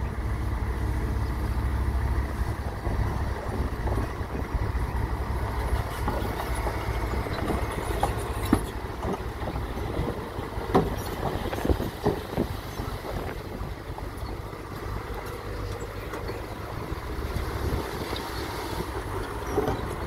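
Dump truck's diesel engine running steadily while the hydraulic hoist tips the bed, with the load of rocks and soil sliding out and clattering down, several sharp knocks of falling rocks around the middle.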